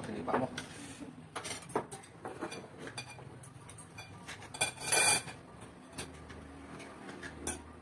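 Spoons and tableware clinking and knocking against metal bowls and plates during a meal, in scattered short clicks, with one louder clatter about five seconds in.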